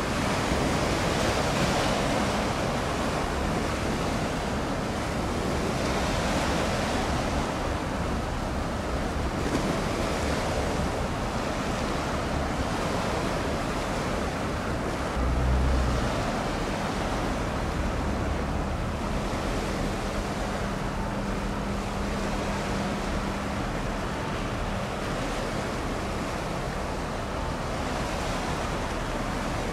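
Steady wash of sea waves and wind, with wind buffeting the microphone in a brief low rumble about halfway through. A faint low hum sits under the noise for several seconds afterwards.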